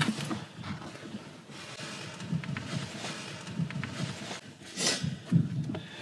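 Faint rustling of a jacket and scuffing against rock as a person moves and handles the camera in a narrow mine tunnel, with small clicks and a louder rustle about five seconds in.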